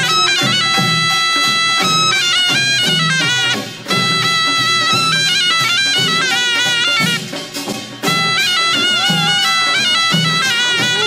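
Korean folk band music: a loud taepyeongso (Korean double-reed shawm) playing a held, stepping melody over a steady drum beat, the phrases breaking briefly about four and eight seconds in.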